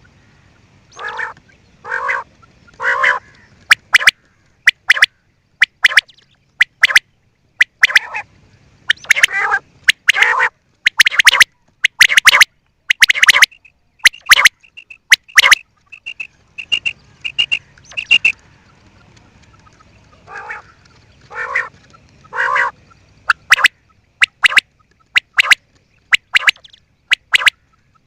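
Quail calling over and over, harsh calls about one a second, with a run of short high notes in the middle.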